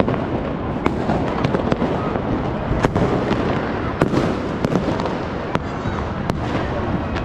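Fireworks going off all around: a continuous din of distant bursts and crackle, with sharp bangs about once a second.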